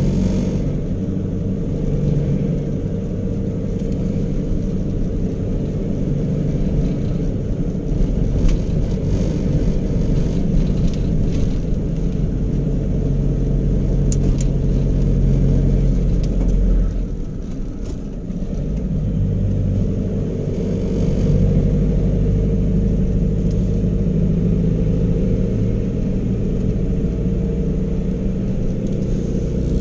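A car's engine and road rumble heard from inside the cabin while driving a winding road. The engine note holds steady, dips briefly a little past halfway, then settles at a new pitch.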